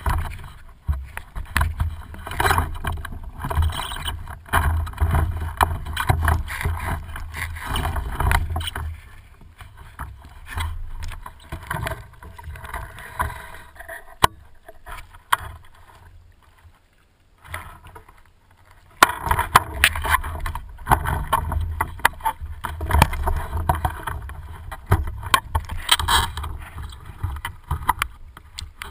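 Sea water sloshing and splashing around a waterproof action camera at the surface, muffled by its housing. It goes quieter for several seconds midway, then picks up again.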